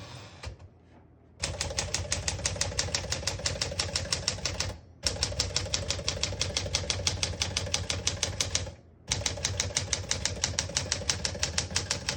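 Rapid typing on a 1963 Smith-Corona Sterling manual portable typewriter: fast, even key strikes clacking against the platen. The typing starts about a second and a half in and runs in three bursts, with two brief pauses.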